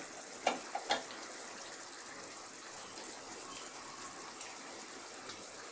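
Thick prawn and potato curry simmering hard in a pan on a raised flame, its gravy reducing: a steady bubbling hiss. A few light knocks of a wooden spatula against the pan in the first second.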